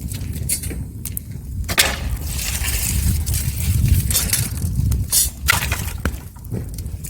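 Wood fire crackling, with irregular sharp pops and snaps over a low steady rumble and a denser hiss of burning through the middle.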